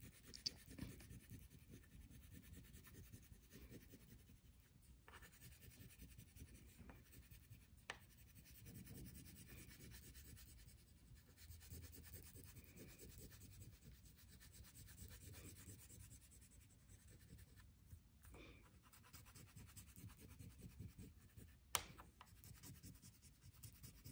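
Faint scratching of a crayon coloring on paper, with a few soft ticks.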